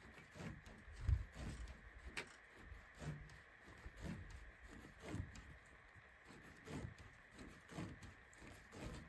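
Faint rustling and soft low thuds of hands working yarn through the taut warp threads of an upright carpet loom while tying knots, roughly one every second, with one sharper click about two seconds in.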